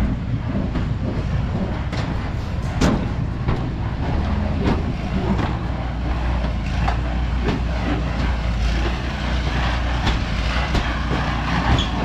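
Concrete mixer's engine running steadily with a low drone, with scattered knocks and clicks over it.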